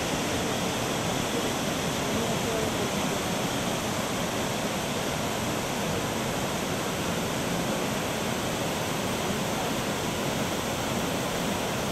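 Waterfall: falling water making a steady, even rushing noise that does not change in level.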